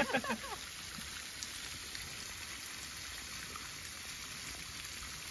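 Meat sizzling on a grill pan over a portable gas stove, a steady hiss.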